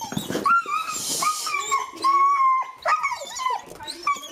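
Dogs whining and yipping in over-excited greeting of someone coming home, a string of short rising and falling whines with one long high whine in the middle.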